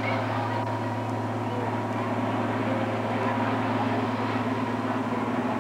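Red International Harvester farm tractor's engine running hard at a steady pitch as it pulls a weight-transfer sled down the track.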